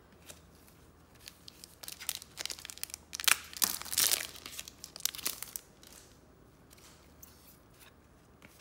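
Crinkling and crackling of a trading-card pack wrapper being handled and torn, in a dense run of crackles from about two seconds in that is loudest around the middle and fades out after about five seconds.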